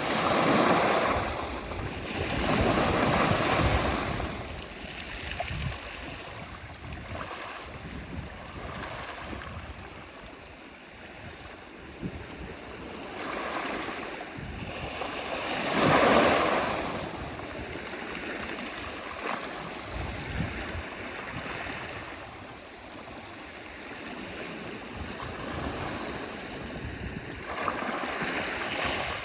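Sea waves breaking and washing ashore, in irregular swells of surf noise, the loudest about halfway through.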